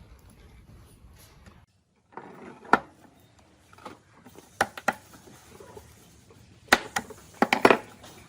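Parts of a circular saw being handled on a workbench: a scattered series of sharp knocks and clicks, loudest in a cluster about seven to eight seconds in.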